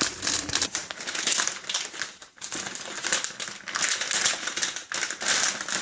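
Plastic packaging crinkling and crackling irregularly as it is handled.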